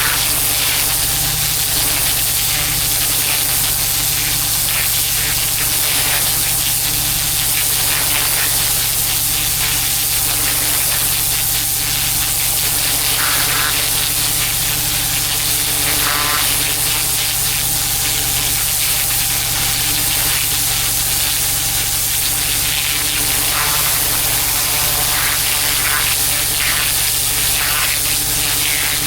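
Pressure washer spraying a jet of water onto paving, a steady loud hiss with the unit's motor humming steadily underneath.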